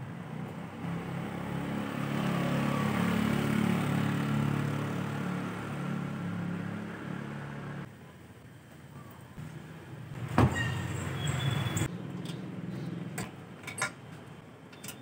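A motor vehicle passing by: its engine grows louder and then fades away over about eight seconds. About ten seconds in comes one sharp knock, followed by a few light clicks.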